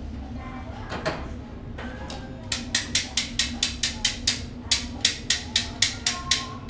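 A metal spatula striking a teppanyaki iron griddle in rapid, even strokes, about four a second, starting a couple of seconds in after a single knock, over a steady low hum.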